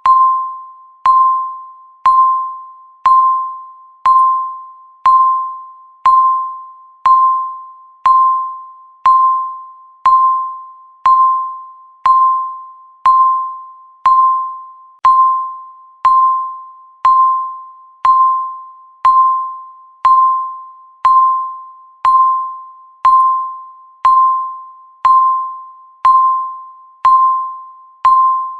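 Countdown timer's tick sound effect: one short ringing tone each second, evenly spaced, each fading away before the next.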